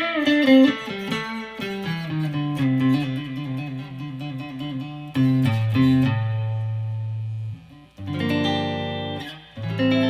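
G&L ASAT Tribute Classic electric guitar played clean on its neck pickup, straight into the amp with no effects: a picked riff of single notes over low bass notes, with a string bend at the start and chords strummed near the end.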